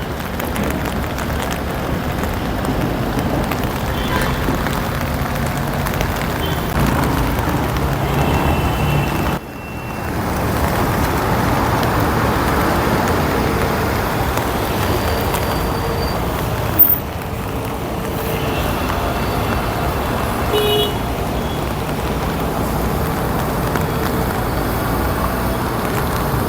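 Jammed highway traffic at a toll plaza: vehicle engines running in a steady rumble, with several short horn toots scattered through and a single sharp knock about two-thirds of the way in.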